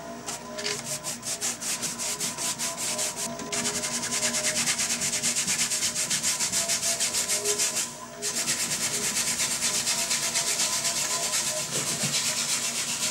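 A wide paintbrush scrubbing paint onto a stretched canvas in quick back-and-forth strokes, a few a second, with a short pause about two-thirds of the way through.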